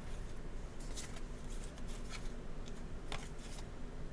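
Zingo game cards sliding and rubbing against one another as they are spread out by hand, in a few short rustles.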